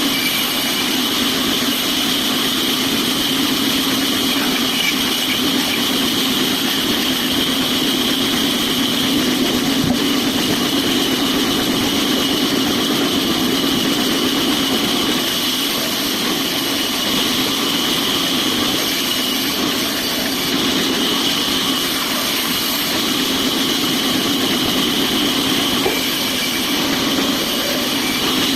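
Sawmill machinery running steadily: a constant hum under a high whine, with no change in pitch.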